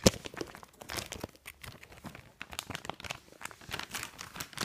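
Irregular crinkling and rustling of a clear plastic punched pocket and paper cut-out figures being handled, with one sharp knock right at the start.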